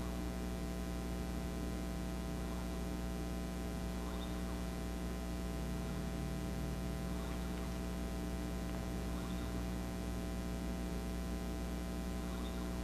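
Steady electrical hum with many overtones, a mains-type hum on the recording, with faint brief high sounds every couple of seconds.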